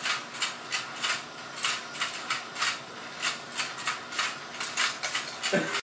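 Battery-powered toy fishing game turning its pond of plastic fish, a rhythmic plastic rasping at about three strokes a second. Cuts off suddenly near the end.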